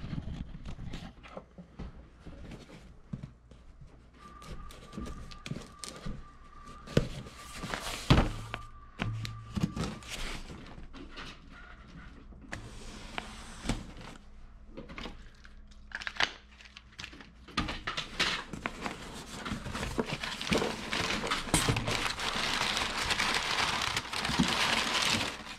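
A cardboard shipping box being handled and opened: knocks and thunks as it is moved and its tape slit with a knife, then a long run of crumpled kraft packing paper rustling as it is pulled out of the box near the end.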